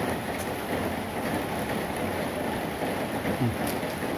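Steady rain falling, an even hiss with a few faint ticks in it.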